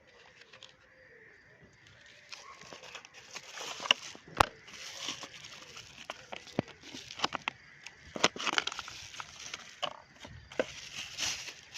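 Rustling and crinkling handling noise with scattered sharp clicks. The loudest click comes about four and a half seconds in.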